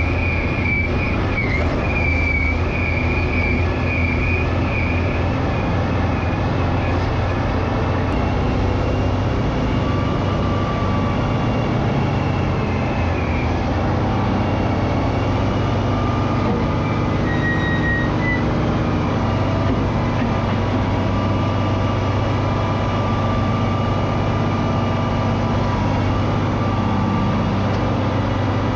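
Heavy diesel engine of a Caterpillar 637C motor scraper running steadily under load, a deep hum with a high whine over the first few seconds.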